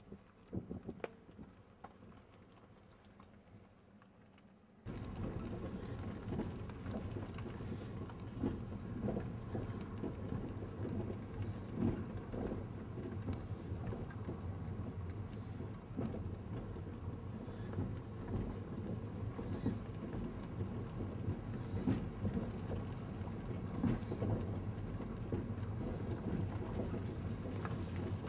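Moving car's road and wind noise heard from inside the vehicle: very faint at first, then a sudden jump about five seconds in to a steady low rumble with crackling wind buffeting on the microphone.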